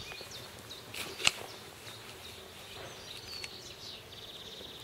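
Small birds chirping and twittering in short, high, downward-sliding notes, with a rapid buzzy trill near the end. A single sharp click sounds a little over a second in.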